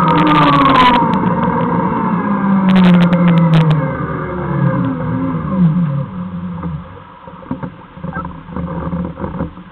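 Segway's electric drive whining, several tones together falling steadily in pitch as it slows down over about six seconds, with a few clicks along the way. It then drops to a much quieter, uneven rumble as it comes to a stop.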